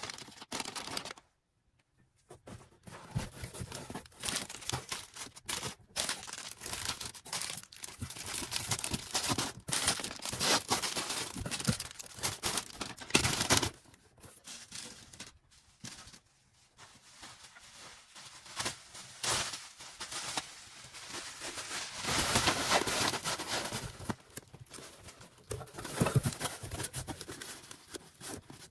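Packaging being handled while an order is packed by hand: material crinkling, rustling and tearing in irregular bursts, with a brief pause about a second in.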